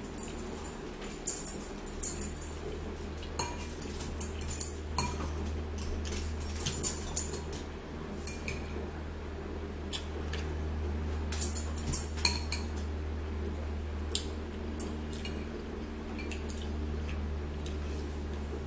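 A metal fork and spoon clinking and scraping against glazed ceramic bowls in scattered sharp clicks, over a steady low hum.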